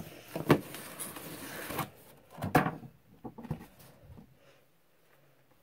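Cardboard doll box being handled and turned around on a hard surface: rustling and scraping, with two sharp knocks about half a second and two and a half seconds in, then a few light taps before it goes quiet.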